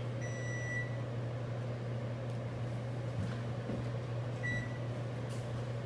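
A steady low background hum, with two faint, brief high-pitched tones, one just after the start and one about four and a half seconds in.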